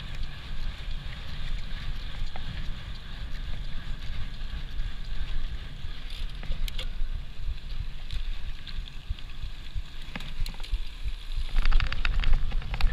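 Mountain bike riding at speed: wind buffeting the microphone and a steady tyre rumble on a paved road. About eleven seconds in it turns louder, with quick rattling clicks as the bike runs over a dirt forest trail.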